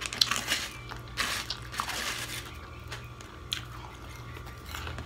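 Chewing and crunching a mouthful of tuna salad filling with red onion, in irregular bursts with a few small clicks.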